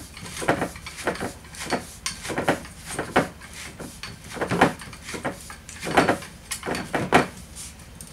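Hard plastic sleeve being twisted on a maypole's pole to tighten its grip, giving a string of short scraping creaks, one every half second to a second, as the plastic grinds with each turn.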